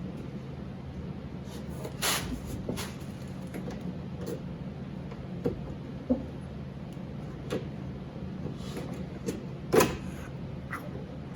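Scattered clicks and knocks of hand tools and metal parts in a car door as its lock and handle hardware are worked loose: a handful of separate knocks, the loudest near the end, over a steady low hum.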